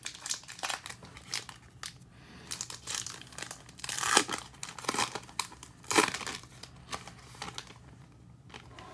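Foil wrapper of a Bowman baseball card pack crinkling as it is torn open by hand, with two louder rips about four and six seconds in.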